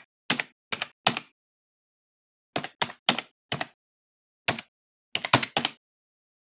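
Computer keyboard keystrokes, about a dozen, in an uneven rhythm: four spaced taps, a pause, four more, one alone, then a quick run of several near the end, with total silence between them.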